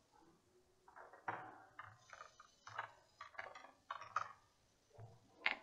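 Faint computer keyboard key clicks: about six or seven separate keystrokes over a couple of seconds as a short word is typed, with one more click near the end.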